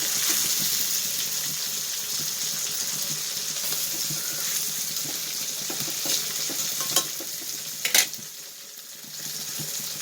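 Indian mackerel pieces sizzling as they fry in hot coconut oil in a pan, a steady hiss. A few sharp clicks come near the end, the loudest about eight seconds in, after which the hiss briefly drops.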